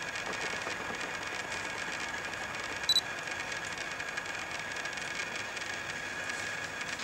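Common brushtail possum gnawing and scraping at the flesh inside a husked coconut, over a steady background hiss with a faint steady whine. A short high beep sounds once about three seconds in, the loudest sound.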